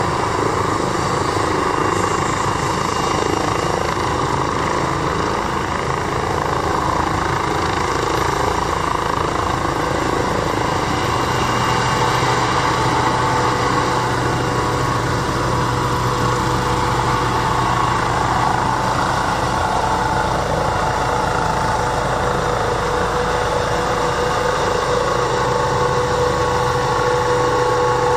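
Medical helicopter taking off: steady turbine whine and rotor noise as it lifts off and climbs, with the whine growing stronger about halfway through.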